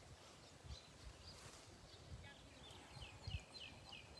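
Faint outdoor ambience: a small bird repeating a short downward chirp about four times a second in the second half, with a few soft low thumps.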